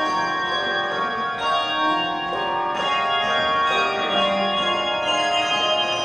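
Handbell choir ringing a gospel song arrangement: many handbells sounding together in chords, each struck note ringing on as new chords come in every second or so.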